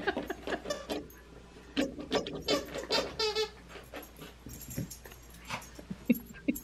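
A miniature schnauzer chewing and pawing at a plush toy with a large circular squeaker inside, setting off repeated short squeaks.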